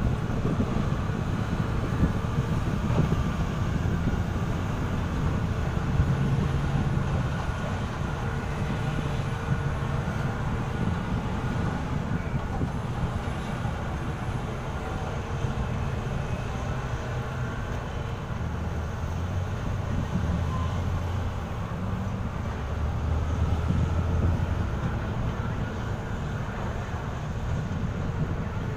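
Steady low rumble of heavy diesel mining machinery running, with an engine hum that comes and goes and drops lower in pitch in the second half.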